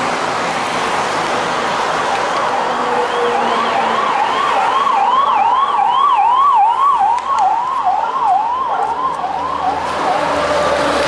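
Ambulance siren in fast yelp mode, about three rising-and-falling sweeps a second. It grows louder, then fades away as the ambulance passes, over the noise of passing cars.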